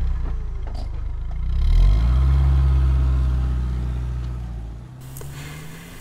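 Car engine running just after starting, revving up about two seconds in, then fading away as the car drives off.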